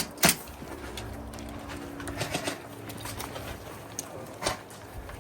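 Airsoft gun shots: one sharp crack just after the start and another about four and a half seconds in, with fainter shots between them and a low steady tone in the middle.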